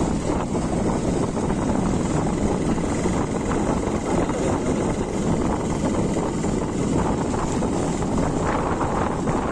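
Motorcycle riding along at low speed, its engine running steadily under a constant rush of wind on the microphone.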